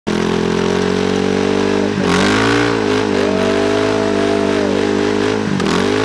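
Honda TRX400EX ATV's single-cylinder four-stroke engine revving high and steady as its rear masonry cutting-disc wheels spin in loose gravel, with a hiss of grit under it. The engine pitch dips sharply about two seconds in and again near the end, then climbs back.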